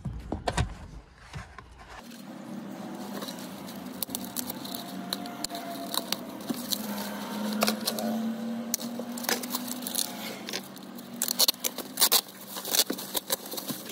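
Plastic packaging wrap crinkling and crackling in irregular sharp bursts as a packed car armrest is unwrapped by hand, over a faint steady hum.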